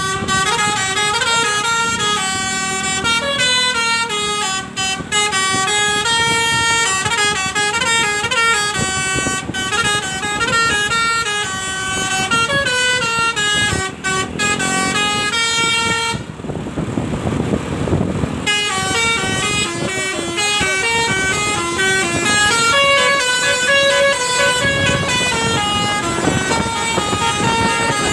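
Indonesian telolet bus horn, a multi-tone musical air horn, playing a fast stepping melody of high notes over and over. It breaks off for about two seconds partway through, where a rush of noise takes its place.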